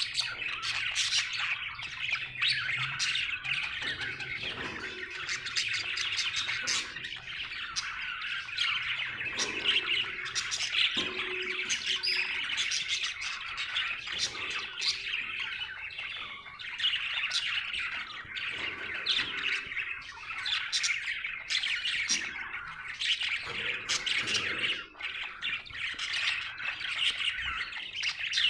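Budgerigar chattering continuously: a dense stream of chirps, warbles and short squawks, the busy chatter of a contented budgie.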